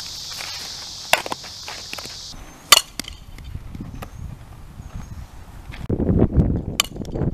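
Sharp cracks of a bat striking a softball, one about a second in and a louder one nearly three seconds in, over a steady high buzz that cuts off partway. Later come scuffing steps on infield dirt, a low wind rumble on the microphone and another sharp snap near the end.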